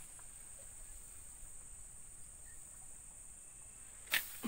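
A steady high-pitched insect drone, with one brief loud sharp sound about four seconds in.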